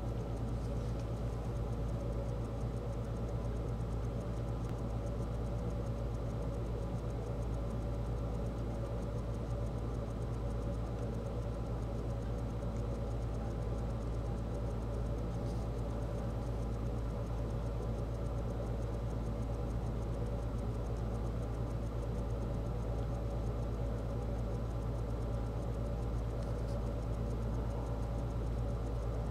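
Steady low mechanical hum with a few faint steady tones over it and a couple of faint ticks.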